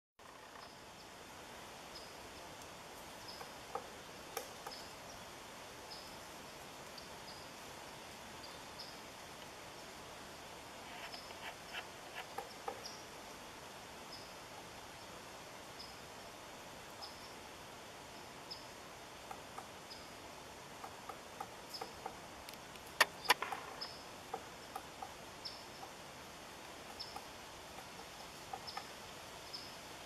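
Outdoor ambience: a steady hiss with a short high chirp repeating every second or so, and scattered light taps and clicks. Two sharp, loud clicks come close together about three-quarters of the way through.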